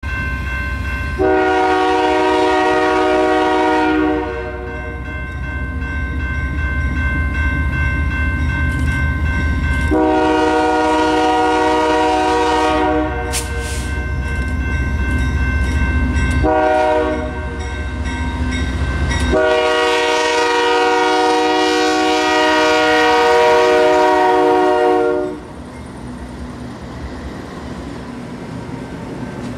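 GE Dash 9 diesel locomotive sounding its multi-note air horn in four blasts as it approaches, the last one held longest, over a low engine rumble. After the horn stops near the end, the locomotives and freight cars roll past with their wheels clacking over the rails.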